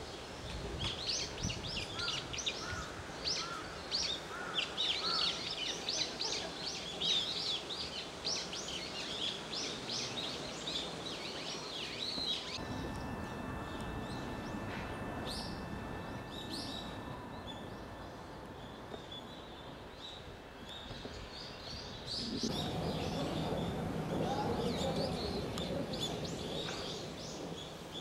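Small birds chirping, many quick high calls close together for the first dozen seconds. After an abrupt change about twelve seconds in, the chirping stops and there is a quieter open-air background with two faint steady tones. A louder low background noise sets in a little past twenty-two seconds.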